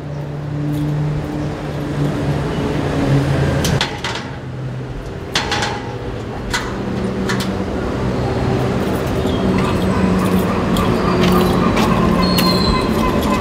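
A motor vehicle's engine running steadily, its pitch rising a little from about six seconds in, with scattered clicks and knocks over it.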